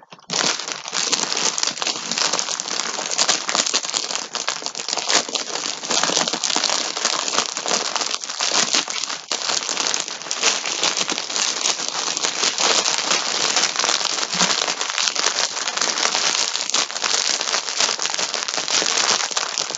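Plastic yarn packaging crinkling continuously as the packs are handled, a dense crackle starting about half a second in.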